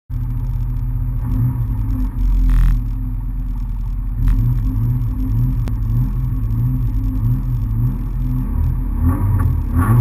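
Rally car engine idling with an uneven, pulsing beat, heard from inside the stripped cabin, with brief louder surges about two and a half seconds in and again about four seconds in.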